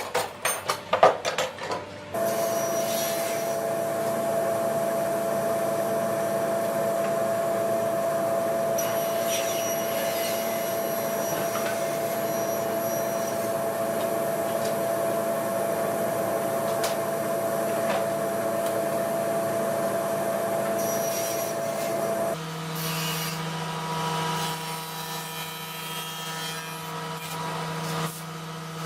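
A few sharp wooden knocks, then an electric woodworking power tool running steadily with a constant whine for about twenty seconds. It stops, and a lower, steady motor hum takes over, rising and falling a little in loudness.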